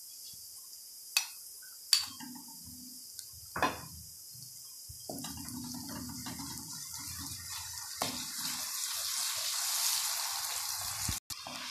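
Sliced onions and ginger-garlic paste frying in oil in a metal pan: three sharp knocks in the first few seconds as the paste goes in, then a sizzle that grows louder from about five seconds in as the mixture is stirred with a wooden spatula.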